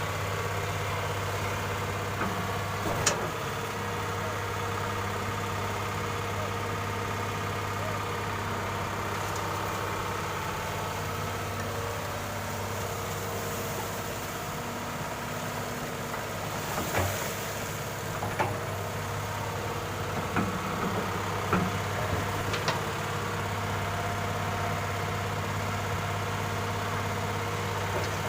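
Heavy diesel engine of an excavator running steadily, with a few sharp knocks, most of them bunched together near the end.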